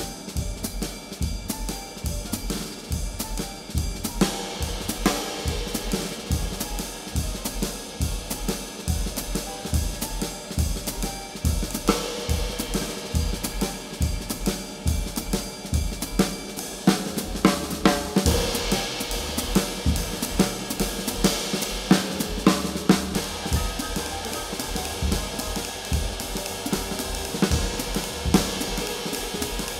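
Background music with a steady drum-kit beat: kick drum, snare, hi-hat and cymbals.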